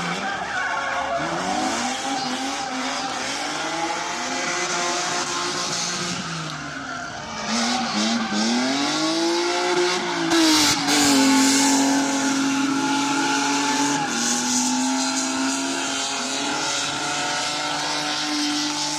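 Drift car engine revving up and down while its tyres squeal through a slide. It grows louder about halfway through, with one sharp crack, then holds high revs steadily.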